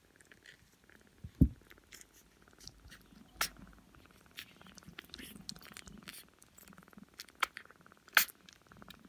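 Sixteen-day-old Sphynx kittens suckling at their mother, with many wet clicks and smacks over a low cat purr. A single loud low thump comes about one and a half seconds in.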